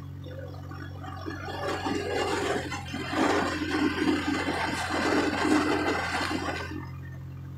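Steady low engine hum of the vehicle being ridden, with a rush of wind noise over the microphone that swells about a second in and dies away near the end.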